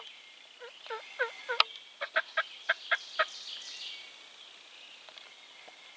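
Wild turkey calling: about four swooping notes, then a quicker run of about six sharp notes, over a steady background of high songbird calls. A sharp click sounds right at the start.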